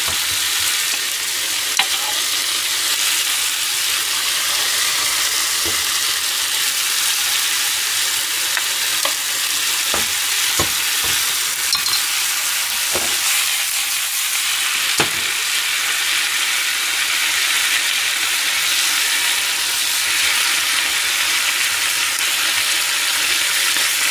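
Chopped cabbage sizzling steadily in an oiled frying pan as it steam-fries, a constant hiss. A few short light knocks of a utensil against the pan or pot come through in the first half.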